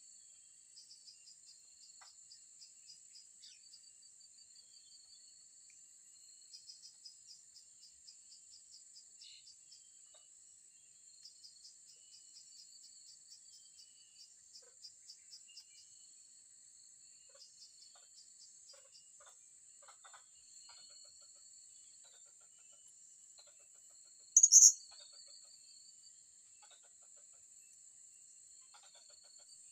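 Steady, high insect buzzing with trains of rhythmic chirps, typical of crickets. About two-thirds of the way in, one loud, short, shrill bird call cuts through.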